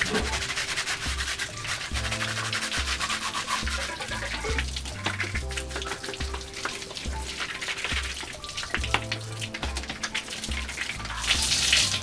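Tap water running onto a plastic washing-machine lint filter as it is rubbed and scrubbed with a toothbrush, with a louder rush near the end. Background music with a steady beat plays underneath.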